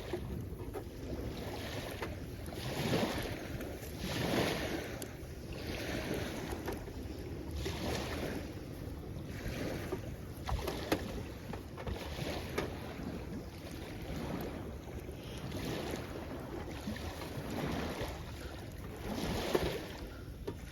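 Small waves washing onto the shore, surging and falling back every couple of seconds, with a steady low rumble of wind on the microphone.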